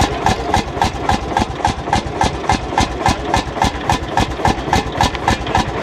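Vintage Landini tractor's single-cylinder hot-bulb (testa calda) engine idling with a slow, even beat of about four strokes a second.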